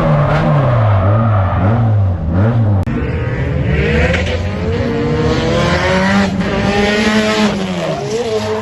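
Nissan 180SX drift car's engine revving hard, its pitch swinging up and down quickly as the throttle is worked through a drift. There is a brief break about three seconds in, after which the revs are held higher with tyre noise over them.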